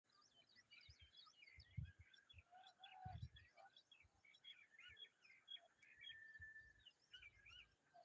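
Faint, busy chorus of small birds chirping and whistling, many short calls overlapping, with one steady whistle held for about a second near the end. Occasional low thuds sound under the calls.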